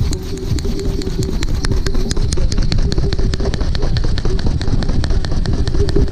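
Background music with a fast, steady beat of ticks over a dense low rumble.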